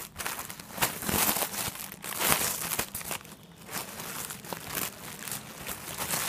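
Clear plastic clothing packet crinkling and crackling irregularly as hands handle it and open it, louder in the first few seconds.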